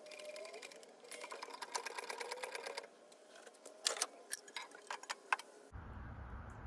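Old Craftsman hydraulic floor jack being worked to lift the front of a snowmobile: quiet, fast, even clicking at about ten a second for two seconds, then a few separate clicks, with a faint rising creak.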